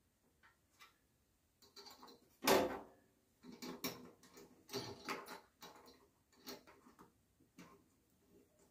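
Welding-wire spool being handled and fitted on a MIG welder's spool holder: irregular clicks and knocks, one louder knock about two and a half seconds in, then a run of smaller taps.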